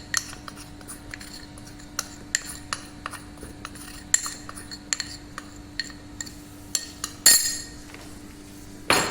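A spoon clinking and tapping against a bowl, a long run of sharp, separate clinks with louder knocks about four seconds in, about seven seconds in and near the end, over a faint steady hum.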